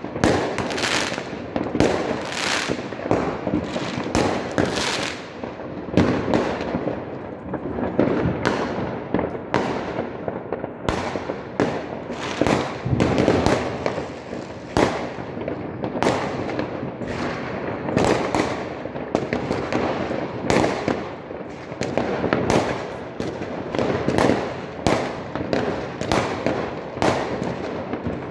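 New Year's Eve fireworks: an unbroken barrage of many overlapping bangs, roughly one or two loud ones a second.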